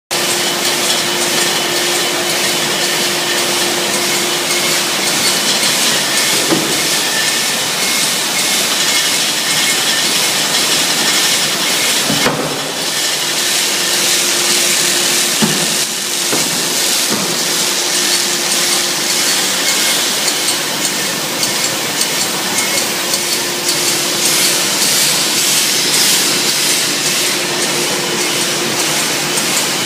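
A shrink-sleeve labelling line and its heat-shrink tunnel running, giving a loud, steady hiss over a faint steady hum. A few short knocks sound, about 6, 12 and 15 seconds in.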